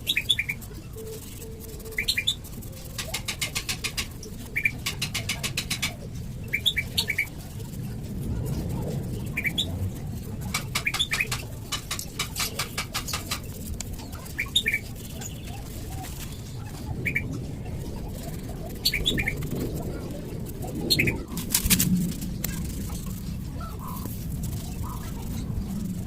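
Fast-forwarded sound of a motorcycle cylinder block being wiped and rubbed down: quick trains of rapid rubbing strokes, each lasting about a second, with short high chirps scattered throughout.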